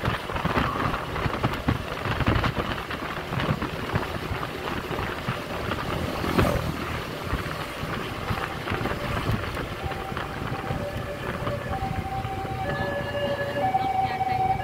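Wind buffeting the microphone and road noise from a Honda motor scooter riding through light traffic. From about two-thirds of the way in, a few steady held tones come in over it.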